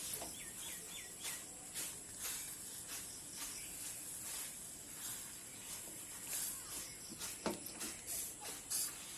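A gas stove burner hissing faintly under a small pan of tulsi leaf juice as it warms, with scattered light clicks and knocks of the pan and utensils.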